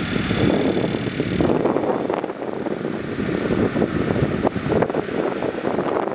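Heavy earthmoving machinery working, with a dense, irregular rattle and clatter over its running engine. The low rumble drops away about a second and a half in.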